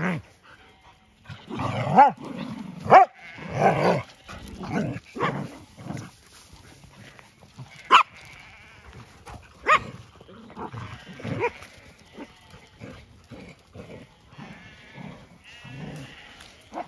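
Dogs play-fighting: loud wavering cries about two to four seconds in, then short sharp yelps around eight, ten and eleven seconds in.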